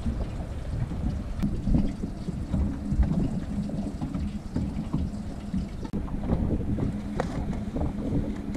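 Wind buffeting the microphone in uneven low rumbles, over a faint steady hum, with a few light clicks.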